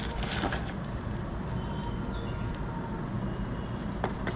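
Unboxing handling noise: a brief rustle of packaging and cable being handled at the start, then a soft click near the end, over a steady low background rumble.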